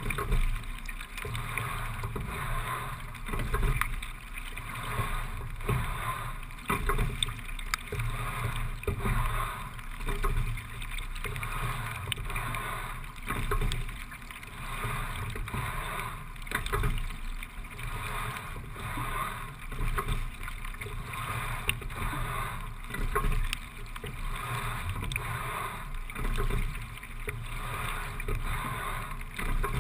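Single racing scull being rowed steadily at about 17–18 strokes a minute: a swell of sound with knocks recurs about every three and a half seconds over a continuous rush of water.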